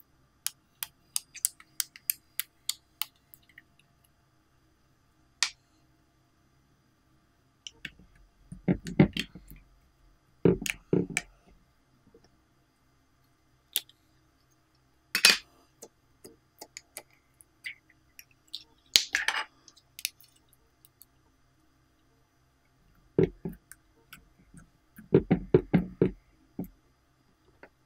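Small plastic slime containers being handled and opened: a quick run of sharp plastic clicks at first, then slime squelching as it is squeezed out into a glass dish, with a couple of louder crackly lid pops in between.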